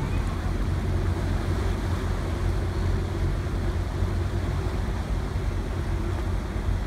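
A Sydney First Fleet-class ferry's diesel engines running steadily as it pulls away from the wharf, with its propeller wash churning the water: a steady low rumble.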